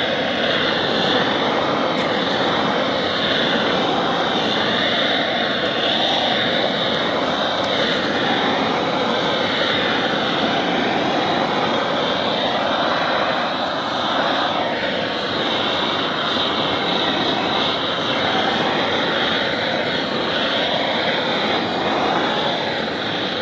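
Hose-fed gas blowtorch burning with a loud, steady roaring hiss as its flame singes the skin of a plucked chicken.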